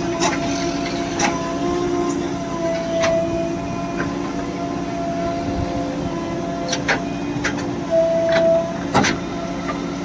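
JCB 3DX backhoe loader's diesel engine running steadily under load, with a steady hydraulic whine as the backhoe bucket digs into dry soil. Several sharp clanks and knocks come through at irregular moments.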